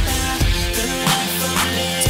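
Background music with a steady drum beat and deep, sustained bass notes, with no vocals.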